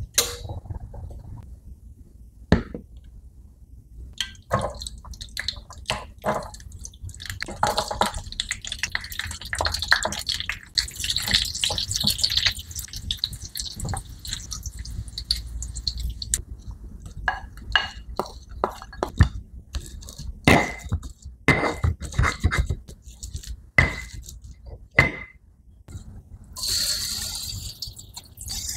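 Stovetop cooking sounds: a string of knocks and clinks of utensils against pots and pans, some of them ringing, with stretches of hissing as oil fries in a pan. A brief louder hiss comes near the end.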